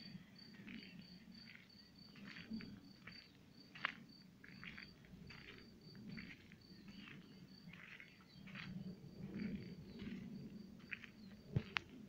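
A cricket chirping steadily, short high pulses about three a second, with scattered bird chirps around it. Two sharp clicks stand out, one about four seconds in and one near the end.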